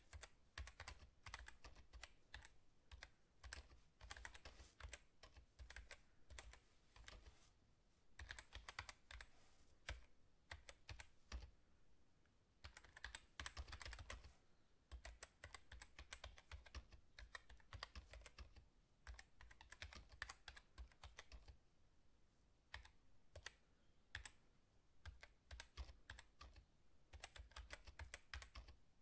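Faint, rapid, irregular clicking in clusters of a second or two with short pauses between them, like typing.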